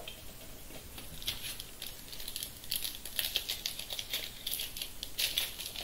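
Plastic wrapper of a Bowman baseball card pack crinkling in the hands as it is worked open, with trading cards rustling. It comes as a dense run of short, high crackles starting about a second in.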